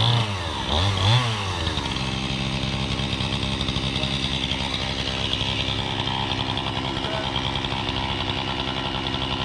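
Gas chainsaw engine revved in a few quick blips, then held at one steady speed.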